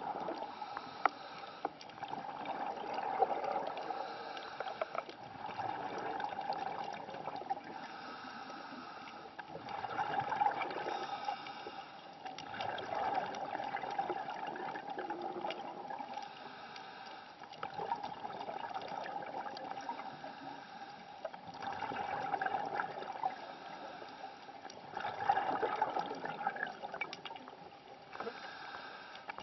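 Scuba diver breathing through a regulator, heard underwater: crackling bubble gurgles swell and fade every few seconds.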